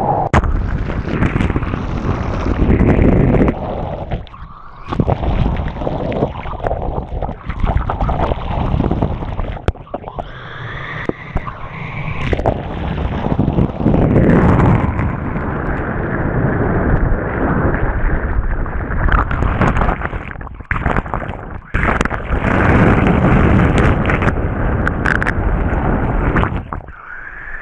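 Water rushing and gurgling hard against a camera dipped into the sea beside a sailing boat under way, with many knocks and pops and a few brief drops in the noise.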